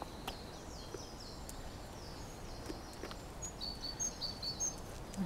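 A small songbird singing: a run of short, high chirps and brief falling notes over faint background noise.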